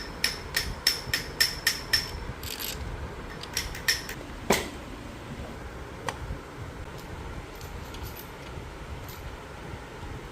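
Sharp metal-on-metal taps, about three a second for the first two seconds, then a few more and one louder knock about four and a half seconds in.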